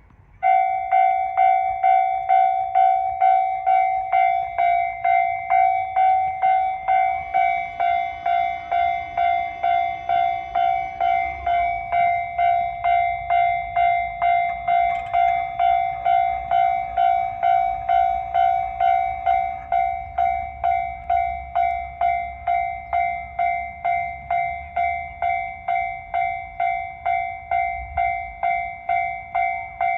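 Japanese railway level-crossing warning bell starting abruptly about half a second in and ringing steadily, about two strikes a second. A faint low train rumble sits underneath from about halfway through.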